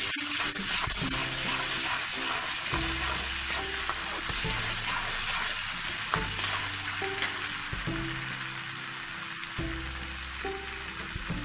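Sliced onions with garlic and ginger paste sizzling in hot oil in a kadai, stirred with a metal spatula that scrapes and clicks against the pan now and then.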